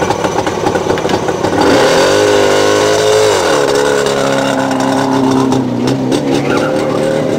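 Small two-stroke motorcycle riding off: the engine note rises about two seconds in, drops back about a second and a half later, then runs steadily.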